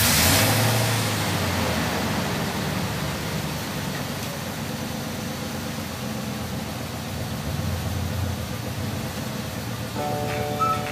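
Mitsubishi Adventure engine idling just after starting, a steady running noise that eases a little over the first few seconds.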